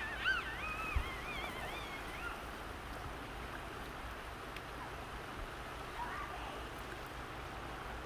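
Fast-flowing creek running steadily over rocks and gravel. In the first two seconds a brief high, wavering call rises and falls over it, with two soft knocks.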